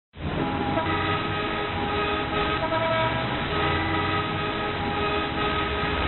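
Rush-hour traffic jam: many car horns honking at different pitches, several held long and overlapping, over the low rumble of engines. It cuts in suddenly at the start.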